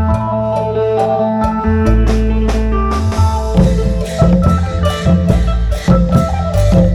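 Isan folk music from a long-drum troupe: a melodic line over a held deep bass, with drums and percussion beating a steady rhythm from about halfway through.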